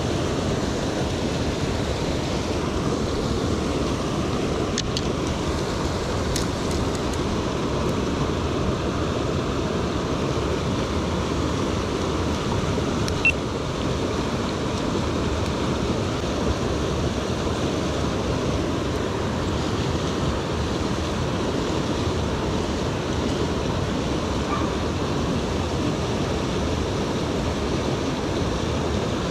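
Steady rush of a creek's flowing water, an even noise throughout, with a few faint ticks in the first half.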